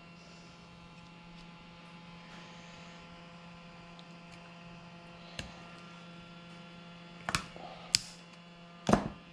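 Steady electrical hum under a few short, sharp metal clicks from circlip pliers and a steel circlip being worked into an aluminium Warn free-wheeling hub, the clicks coming in the second half, the loudest near the end.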